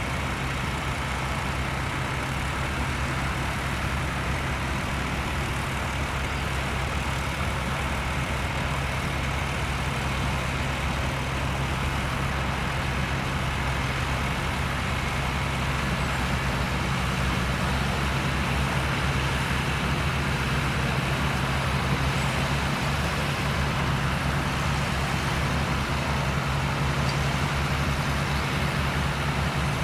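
Tractor engine running steadily at constant revs, growing slightly louder about halfway through.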